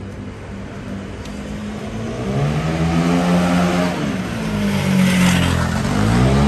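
A motor vehicle's engine accelerating close by, its pitch rising, dropping back, then rising again as it revs up once more.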